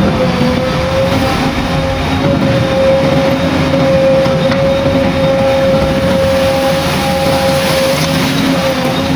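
JCB 3DX backhoe loader's diesel engine running steadily, with a constant high whine over its rumble.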